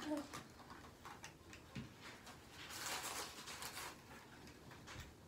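Faint light clicks and taps from small objects being handled on a table, with a second or so of soft rustling about three seconds in.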